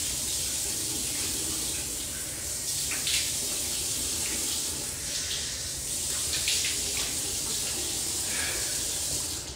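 Bathroom sink tap running steadily, with a few brief splashes from hands washing a face in the stream. The water shuts off just before the end.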